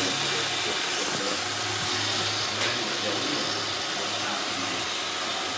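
iRobot Roomba 500/600-series robot vacuum running, a steady whir of its vacuum motor and brushes with a low hum, and a single click about two and a half seconds in.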